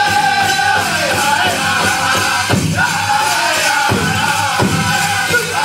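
Powwow drum group singing a chicken dance song in high, held voices over a big shared hand drum. Drumstrokes sound through the singing.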